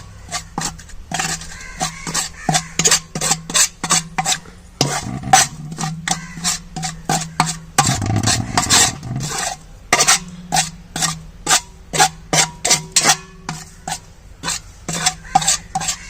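A spoon stirring and scraping a mix of dry spice powders (chili powder, turmeric, salt, pepper and garam masala) around a bowl: a quick, uneven run of scrapes and clicks, about three a second, over a faint low hum.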